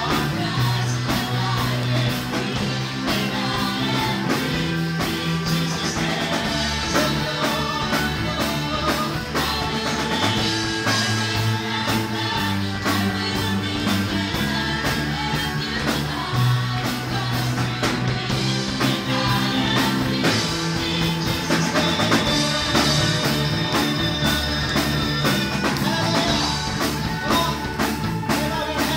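Live worship band playing an upbeat song with a steady drum beat, acoustic and electric guitars, keyboard and bass, and a singer's voice over it.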